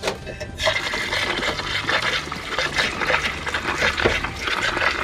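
Water running from a hose and splashing over a marble goby in a basin as hands rub the salted fish, rinsing off its slime. The splashing sets in about half a second in and then runs steadily.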